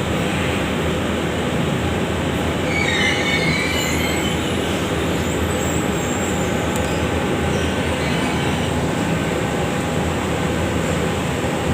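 Compressor machine running with a steady mechanical noise, and a brief high, wavering squeal about three seconds in.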